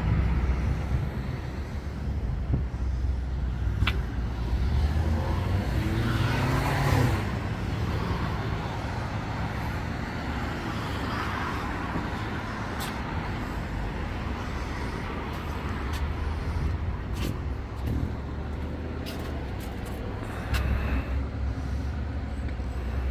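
Street traffic: cars driving past, with a steady low rumble and one car passing more loudly about six seconds in.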